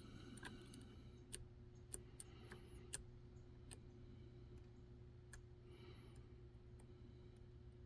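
Faint, irregular clicks and light scraping of a lock pick working the pins inside a Dom IX Saturn lock, a sharp tick every second or so.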